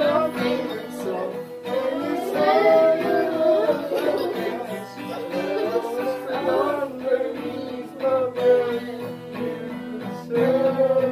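Acoustic guitar strummed in chords while children sing along.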